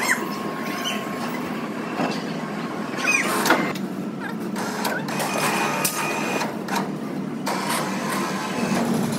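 Steady mechanical working noise with repeated metallic clicks and knocks and a few brief high squeaks.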